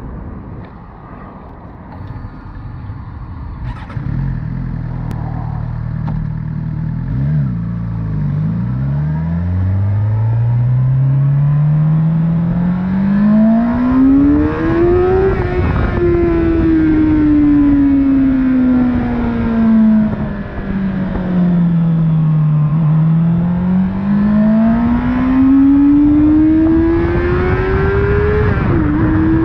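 Suzuki GSX-R 750 K9's inline-four engine heard from the rider's seat as the bike pulls away. It runs low and uneven at first, then the revs climb steadily until a gear change about fifteen seconds in drops the pitch. The revs ease down for several seconds, then climb again with another shift near the end, while wind noise grows with speed.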